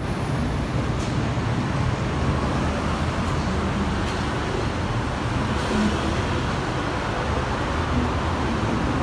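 Steady road traffic noise from passing cars and motorbikes, an even hum without pauses.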